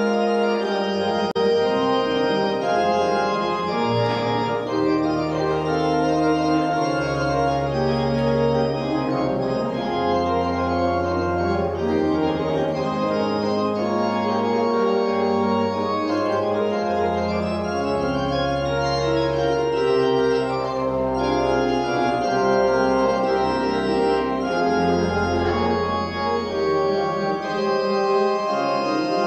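Church organ playing a slow postlude after the Mass: sustained chords that change every second or two over deep bass notes held for several seconds at a time.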